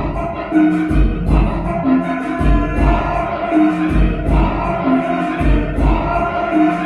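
Live looped electronic music from a Boss RC-202 loop station: a repeating phrase of sustained pitched tones over deep bass pulses that recur about every one and a half seconds, played loud and steady.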